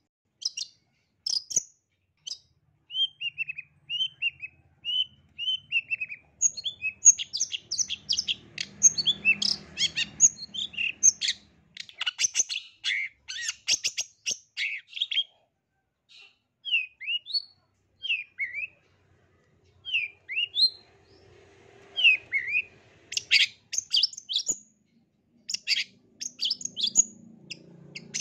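Long-tailed shrike (cendet) singing a varied song of sharp high chirps and short notes that slide downward. The notes come in quick dense runs in the middle and near the end, with slower single notes between.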